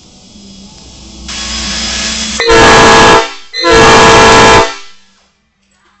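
Nathan P5A five-chime locomotive air horn on shop air: a hiss of air builds for about a second, then two very loud blasts of the horn's chord, each under a second long, with a short gap between.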